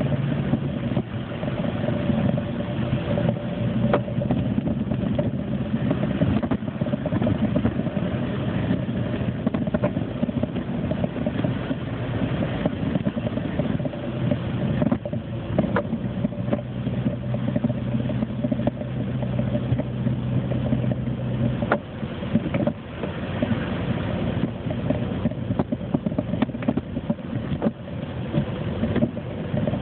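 Car engine and road noise, a steady drone with a low hum that holds level for stretches, and a few scattered clicks.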